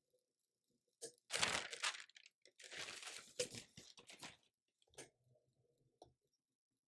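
Sheet of parchment paper rustling and crinkling as it is spread and smoothed over a printed T-shirt on a heat press, in two stretches of a second or two each, with a couple of light knocks near the end.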